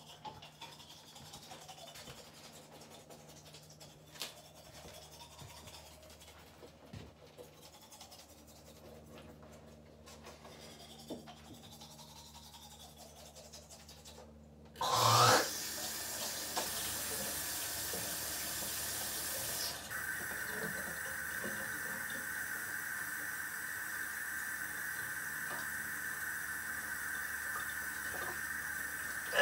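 Faint small clicks and handling at first; then, about halfway, a tap is turned on with a splash and water runs steadily into a stainless steel kitchen sink.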